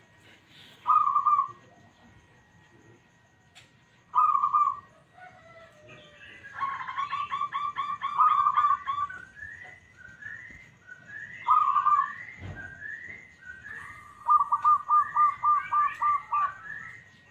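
Zebra dove (perkutut) cooing: short cooing phrases about a second in, near four seconds and near twelve seconds, and longer runs of rapid staccato coo notes around seven to nine seconds and again near the end. Fainter short rising notes repeat between the phrases in the second half.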